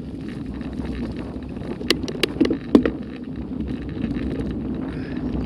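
Mountain bike rolling over a loose gravel track: a steady rumble of tyres on stones and wind on the microphone, with a few sharp clicks and rattles about two seconds in.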